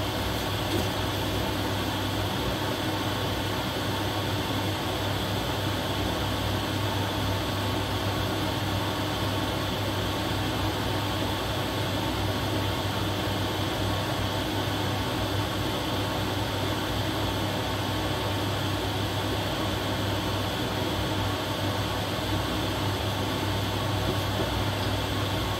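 Steady machine hum with an even hiss over it, like a fan running, unchanging throughout.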